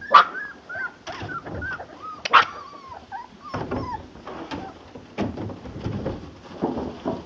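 Puppies whimpering in short, arching whines. Two sharp yips stand out, one just after the start and one about two and a half seconds in.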